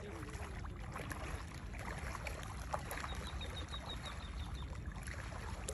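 Shallow seawater lapping and splashing, with wind rumbling on the microphone. About halfway through there is a quick run of short, high chirps.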